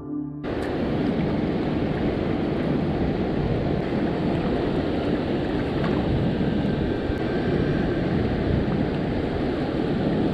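Steady rushing of water pouring through a dam spillway and churning in the river below it.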